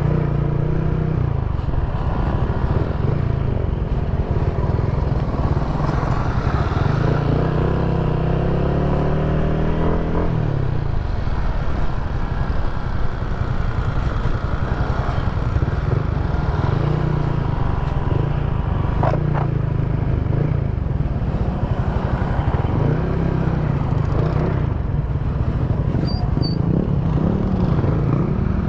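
Motorcycle engine running under load on a rough trail, its revs rising and falling, climbing for a few seconds then dropping off about ten seconds in, with clattering and a sharp knock about two-thirds of the way through.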